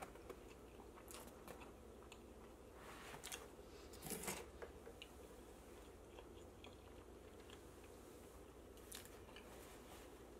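A person chewing a big mouthful of pizza close to the microphone: faint chewing with a few louder mouth smacks, the loudest about four seconds in.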